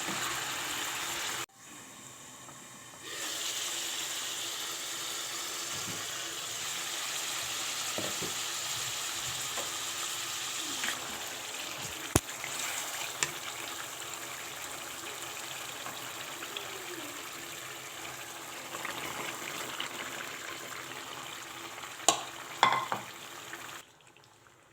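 Food sizzling as it fries in hot oil in a cooking pot, a steady sizzle that dips for a moment about a second and a half in. It is broken now and then by clinks of a spoon against the pot, and cuts off just before the end.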